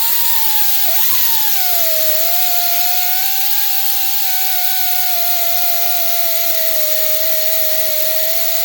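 Air-powered buffing tool with a 3M red abrasive disc running against rusty steel: a steady high whine over a hiss. About a second in the pitch drops as the disc is pressed onto the metal, and it stays lower under load, scrubbing the rust down to bare metal.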